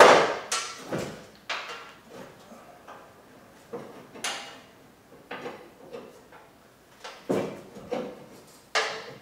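Irregular metallic clunks and rattles, about ten in all, from the steel rear bumper and its brackets being shifted and knocked while bolts are started by hand; a few of the clanks ring briefly. The loudest comes at the very start.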